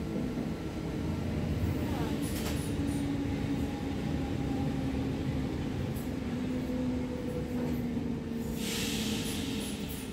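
Inside an NS SGMM Sprinter electric train running at speed: a steady rumble of wheels on track with a faint steady hum. A burst of hiss comes in about nine seconds in.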